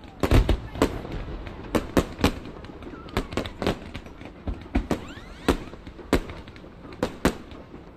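Fireworks going off: irregular sharp bangs and cracks, several in quick succession at times, with a deeper boom about half a second in and a faint rising whistle around the middle.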